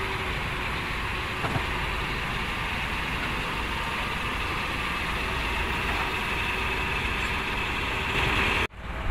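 Excavator diesel engine running steadily while its arm holds and lowers a suspended winch frame. The sound drops out abruptly near the end.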